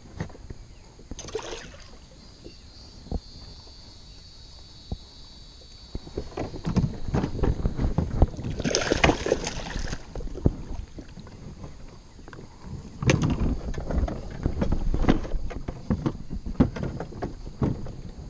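A hooked largemouth bass thrashing and splashing at the side of a small plastic boat as it is grabbed and lifted out by hand, with irregular splashes and knocks against the hull in two spells. A thin high whine sounds for a few seconds near the start.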